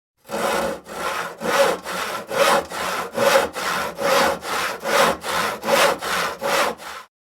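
Hand saw cutting through wood in steady back-and-forth strokes, about two a second, alternating stronger and weaker. The sawing stops abruptly near the end.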